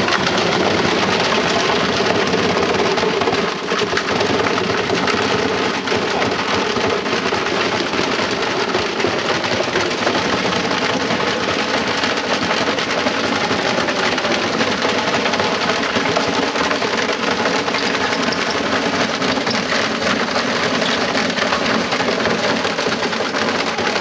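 Washing machine running with a brick in its drum: loud, continuous clattering and banging over a steady hum as the cabinet shakes itself apart.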